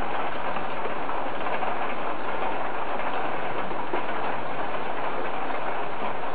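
Heavy thunderstorm rain falling steadily: an even hiss with no thunder.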